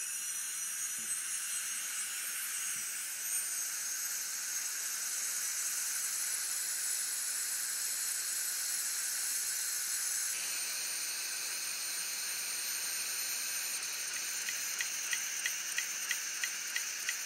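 Opened Hitachi Deskstar 7K250 hard drive spinning: a steady high whine and hiss from the spindle motor and platters, its tone changing about ten seconds in. Near the end a regular ticking starts, about two or three ticks a second: the head actuator, which looks to be trying and failing to park the heads on a drive that has suffered a head crash.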